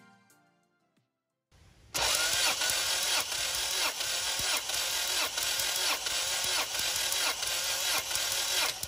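Honda H22 DOHC VTEC four-cylinder engine turned over by its starter without firing: steady cranking with an even pulse about twice a second, as the engine is spun for a wide-open-throttle compression test on cylinder one. The cranking starts suddenly about two seconds in, after music fades out.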